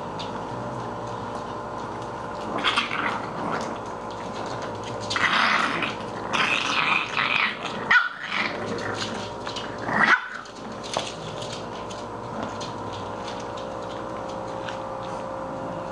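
English bulldog puppies growling and barking as they play-fight, in irregular bursts, with two short sharp barks, the loudest sounds, about eight and ten seconds in.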